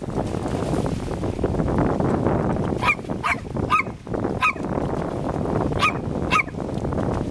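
Small dog giving six short, high barks at running water, three close together from about three seconds in, one more, then two near the end, over a steady rush of water splashing over rocks.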